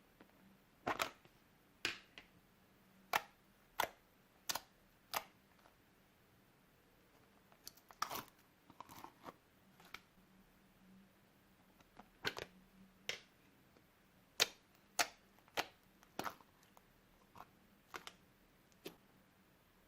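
Slime being mixed and squeezed by hand, giving a string of short sticky pops and clicks at about one or two a second, irregularly spaced.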